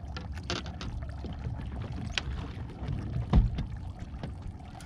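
Low rumble of wind and water around a small boat, with a few sharp clicks and knocks on the boat. The loudest is a dull thump about three and a half seconds in.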